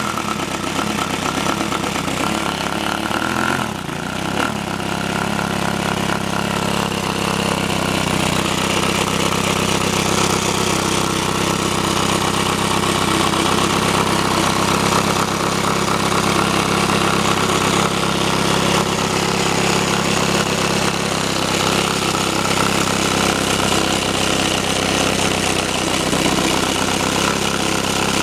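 A small 65 cc three-cylinder five-stroke engine running steadily; its central cylinder works on the exhaust gas pressure of the two outer cylinders. The sound dips briefly about four seconds in, then runs on evenly.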